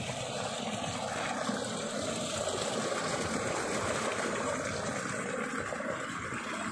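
Small, shallow forest stream flowing: a steady, unbroken sound of running water.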